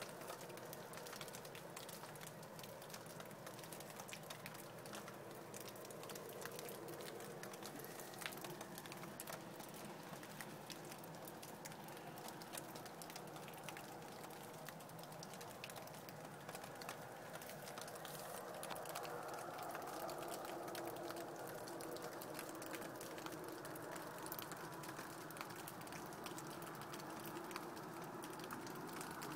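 A steady roar of unknown origin, growing a little louder about two-thirds of the way in, with faint scattered ticks over it.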